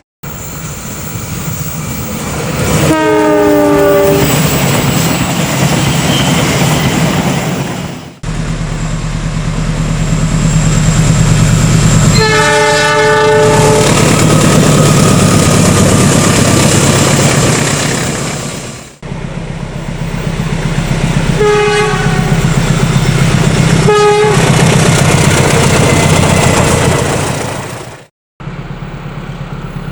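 Trains passing close by, a loud rumble of engine and wheels on rails, in several clips that cut in and out abruptly. The train horn sounds four times, as a greeting from the driver: a blast that drops in pitch as the train passes, a longer blast, then two short toots.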